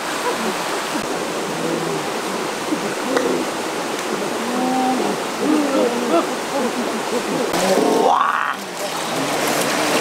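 Rocky rainforest stream rushing steadily over stones, with men's voices talking and calling over the water.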